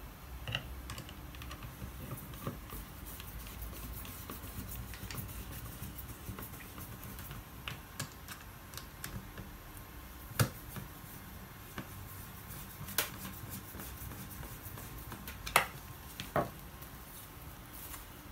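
Light clicks and taps of an oral irrigator's small parts being handled, scattered through, with a few sharper clicks in the second half.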